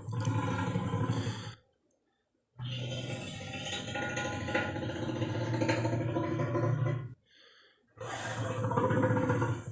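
Tarbosaurus roar sound effects: deep, drawn-out roars with short silences between them. One ends about a second and a half in, a long roar of about four seconds follows, and another starts near the end.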